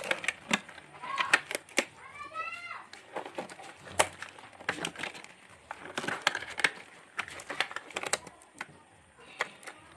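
Thin disposable glove being handled and pulled onto a hand: its material crinkling and snapping in many small sharp clicks. A short squeaky, chirp-like sound comes about two seconds in.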